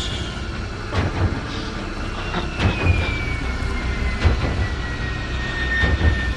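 Jet fighter engine noise from a film soundtrack: a steady low rumble with heavy thuds every second and a half or so, and a high whine that slowly falls in pitch from about two seconds in.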